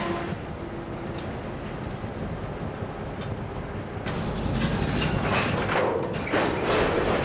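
Freight train's boxcars rolling slowly past, with a steady rumble and wheel noise on the rails. About four seconds in it grows louder, with a run of clanks and knocks from the passing cars.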